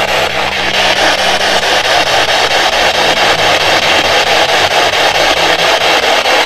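Loud steady static hiss, pulsing rapidly and evenly, with a faint low hum beneath it that fades about halfway through.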